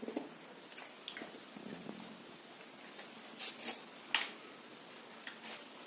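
Quiet room tone with a few soft, short clicks and rustles, three of them close together about three and a half to four seconds in.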